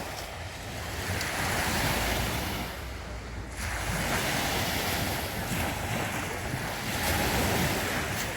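Wind buffeting the microphone with a low rumble, over lake waves washing in, the rush swelling and easing every few seconds.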